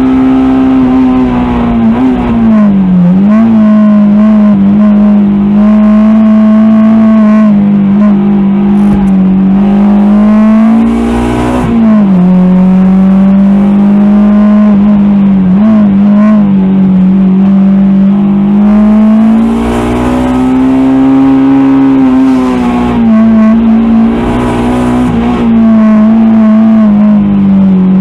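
Honda DC2 Integra's built four-cylinder engine (B18C2 block with a B16A2 head and TODA cams) heard from inside the cabin, driven hard, its pitch rising under throttle and dropping sharply a few times as revs fall.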